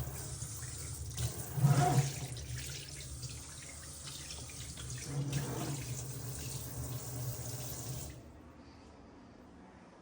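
Water running from a tap into a sink, splashing hardest about two seconds in, then turned off about eight seconds in.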